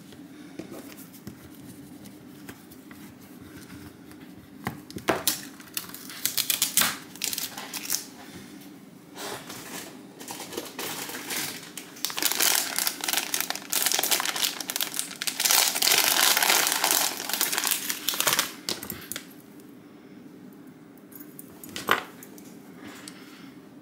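Plastic packaging crinkling and rustling as it is handled, in bursts from about five seconds in until about nineteen seconds, with a few sharp clicks, the last near the end.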